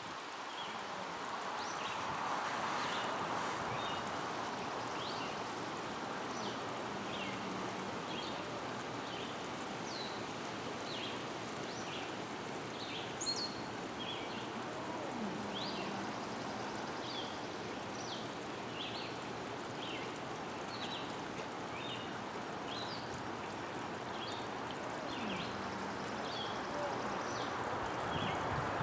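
Outdoor woodland ambience: a steady rushing background noise, with small birds giving short, high chirps every second or so.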